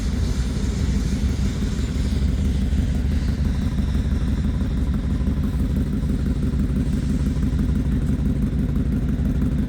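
Freight train of loaded stone cars rolling past with a steady low rumble.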